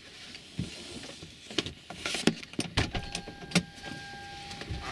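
Irregular clicks and knocks of people and gear moving inside a car cabin, with a steady electronic tone coming in about three seconds in.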